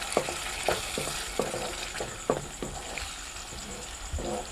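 Slotted spatula stirring and scraping through thick masala gravy in a kadai, the gravy sizzling as yogurt is mixed into it. The spatula strokes come about every half second over a steady sizzle.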